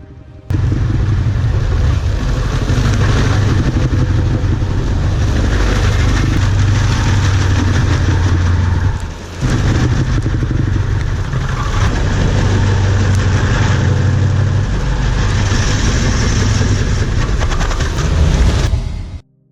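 Engine-driven stump grinder running hard, a loud steady mechanical din. It starts suddenly, drops out briefly about halfway through, and cuts off abruptly near the end.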